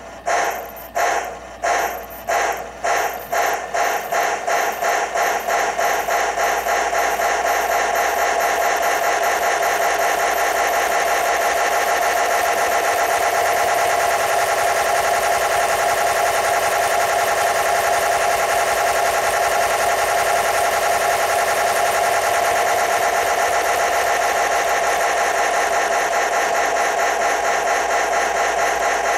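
USA Trains Docksider G-scale model steam locomotive running in place on rollers, giving a rhythmic chuff over a steady whine. The chuffs speed up from about two a second until they run together into a fast, even beat after about six seconds.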